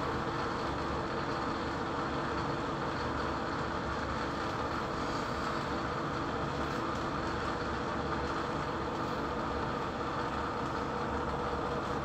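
Steady background rumble with a constant hiss, even throughout, with no distinct events.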